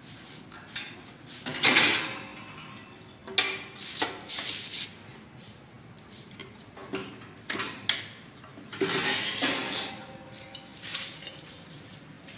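Clattering and sharp knocks as a black G-profile handle strip is handled and pressed onto the edge of a drawer front fixed to a steel wire pull-out basket. The loudest knock comes about two seconds in, and a rattling clatter of about a second comes near nine seconds.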